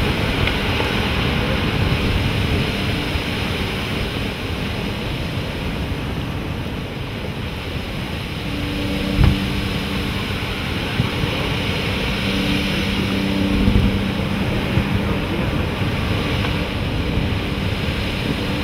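Steady wind and ocean surf noise, with wind buffeting the microphone. A low steady hum joins for several seconds in the middle, and there are two brief dull knocks.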